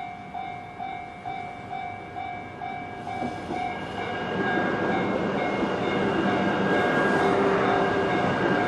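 Level-crossing warning bell ringing its pulsed electronic tone about twice a second. From about four seconds in, the running noise of an E3-series Yamagata Shinkansen train builds up steadily and partly covers the bell.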